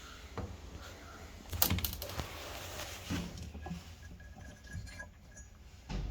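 Metal clinks and knocks of parts or tools being handled, several separate strokes with the loudest clatter about one and a half seconds in.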